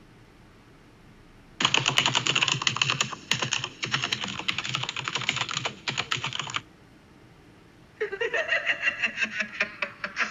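Rapid typing on a computer keyboard, a dense run of key clicks lasting about five seconds and stopping abruptly. Near the end a person starts laughing, with evenly spaced claps under the laughter.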